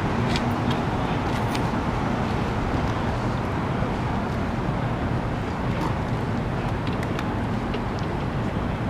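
Steady city street traffic noise, a low rumble with a few faint clicks.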